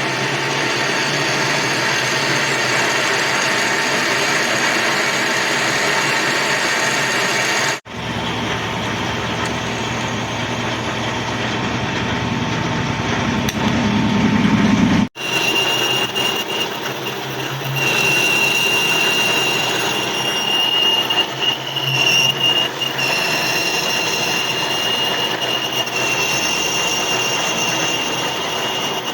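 A metalworking power tool running steadily while machining metal, in three stretches broken by sudden cuts about 8 and 15 seconds in. After the second cut a steady high squeal runs over the machine noise.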